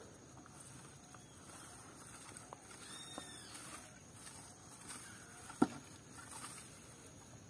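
Faint rustling of weeds and grass as someone moves through them after a grasshopper, with a few soft clicks and one sharp click about five and a half seconds in.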